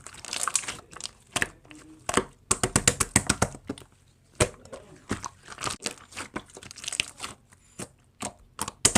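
Slime being squeezed and poked by hand, making a quick irregular run of crisp clicks, pops and crackles.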